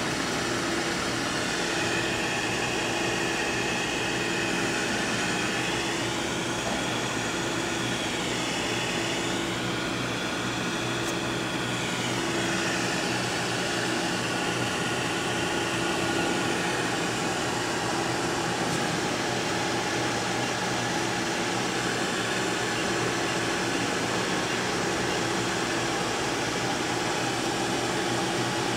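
Steady whirring hum of a running 1992 Micro-Vu 14 optical comparator, its lamp cooling fan running, with a faint whine that rises and falls a few times.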